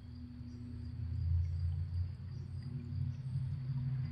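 Outdoor ambience beside a small creek: a steady low rumble with a faint hum, a thin high whine and faint, short, high chirps of small animals.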